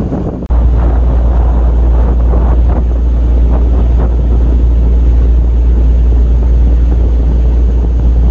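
A boat under way at sea, with wind buffeting the microphone as a loud, steady low rumble over engine and water noise. It starts abruptly about half a second in.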